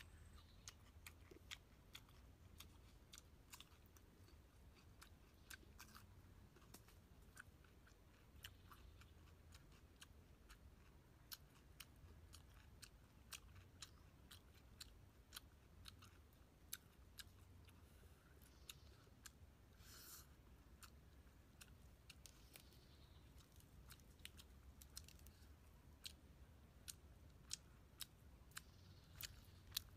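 Close-up crunchy chewing of fried fish: many small, sharp crackles at an irregular pace over a quiet background.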